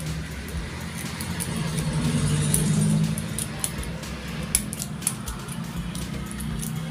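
Small metal clicks and scrapes of a lock pick being worked inside a brass padlock, over a steady low hum.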